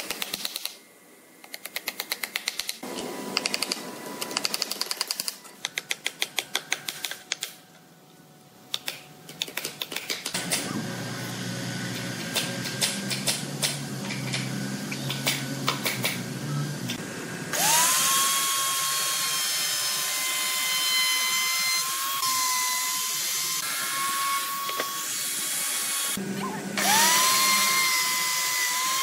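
Bursts of rapid clicking, then a low machine hum. Then an electric wood router is switched on, its motor spinning up to a steady high whine as it cuts. It stops and spins up again near the end.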